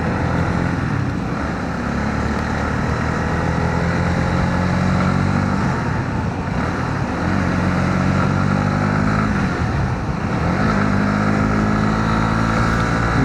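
Honda CB125R's single-cylinder engine running under way, with wind rushing over the microphone. The engine note holds steady but falters briefly twice, about six and ten seconds in.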